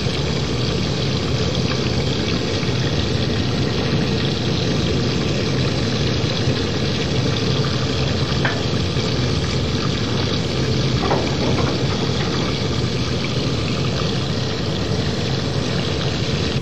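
A large aluminium stockpot of beef and veal bones and meat (dark stock) at a boil, giving a steady bubbling rush with a low rumble underneath.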